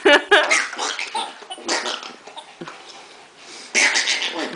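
Baby laughing in short bursts, with a few separate fits of laughter.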